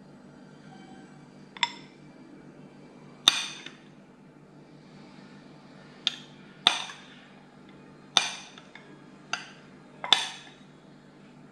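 A drinking glass clinking about seven times at irregular intervals. Each clink is sharp and rings briefly.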